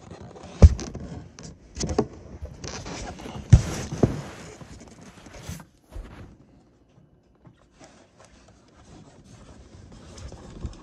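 Handling noises of a toy carousel and its packaging: four sharp knocks in the first four seconds, with rustling and scraping between about three and five and a half seconds in, then only faint rustling.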